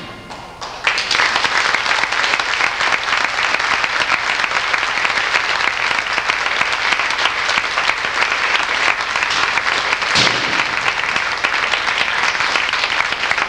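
The last ringing notes of a percussion ensemble fade out, and under a second in the audience breaks into steady applause that keeps up throughout. A single loud, sharp sound cuts through the clapping about ten seconds in.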